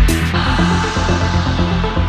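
Electronic background music: a thumping kick-drum beat stops a moment in, leaving held synth bass and chord notes.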